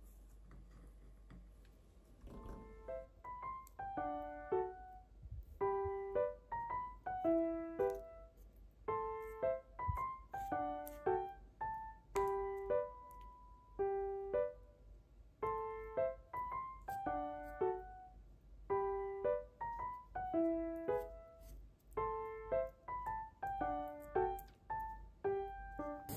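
Background piano music: a gentle melody of single notes in short phrases, starting about two seconds in.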